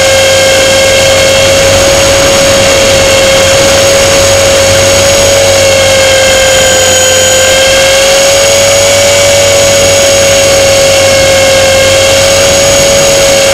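A radio-controlled model plane's motor and propeller, heard very loud right beside them. It is a steady, high, even drone whose pitch sags slightly about halfway through and then comes back up.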